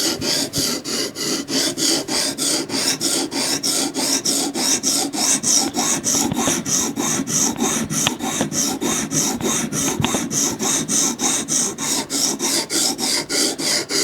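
Coarse 80-grit sharpening stone stroked rapidly back and forth across a steel knife blade, an even rasping rhythm of about four strokes a second. The stone is cutting a new bevel on a tanto edge.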